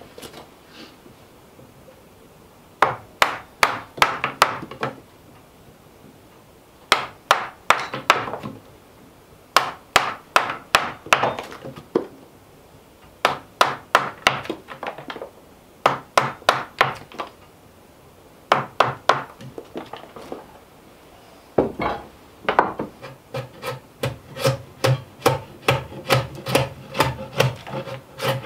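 Hand tool cutting a notch in a short timber: quick sharp strokes on wood in bunches of four to six, a bunch every two to three seconds. Near the end the strokes come in a steadier run.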